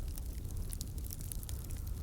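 Wood fire burning, with rapid small crackles and pops from the logs over a low, steady rumble.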